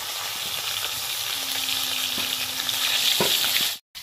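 Pieces of river fish sizzling as they fry in hot oil in a kadai, with a metal spatula scraping the pan once or twice. The sizzle drops out suddenly near the end.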